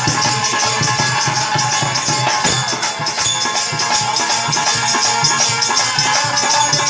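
Hari kirtan devotional music without singing: held steady tones under fast, even jingling percussion and drum strokes.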